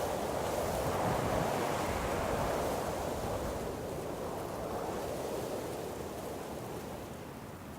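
Wind blowing through trees: a steady rushing of leaves and branches that swells in the first few seconds, then slowly dies down.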